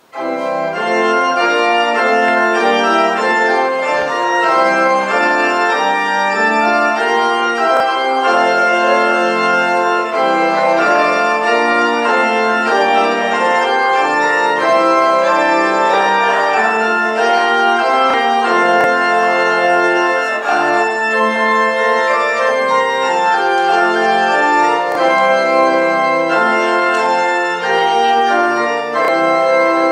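Church organ playing the postlude at the end of the service: loud, sustained chords of many notes moving from one chord to the next, starting suddenly.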